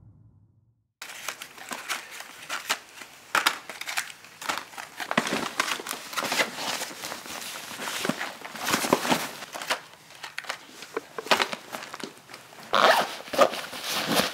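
A fabric backpack being handled and packed by hand: close rustling and crinkling with scattered sharp clicks, busiest near the end.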